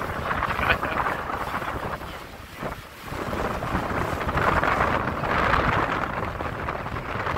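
Wind buffeting the microphone on a sailing catamaran under way, over the rush of the sea along the hull; the gusts ease briefly about two and a half seconds in.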